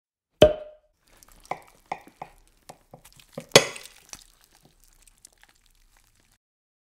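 A metal fork clinks against a ceramic bowl of Veg Manchurian, sharply about half a second in and again after three and a half seconds, each clink ringing briefly. Between them come smaller clicks and taps of the fork working among the sauce-coated balls.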